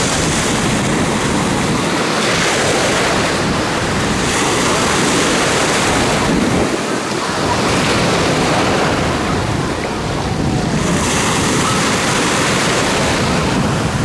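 Black Sea surf washing in on the shore in small waves, swelling and easing every two to three seconds, with wind on the microphone.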